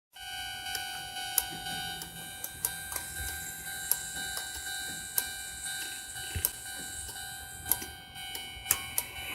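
O-gauge model railroad crossing at work: a steady electronic warning tone with overtones, with irregular sharp clicks and ticks over it.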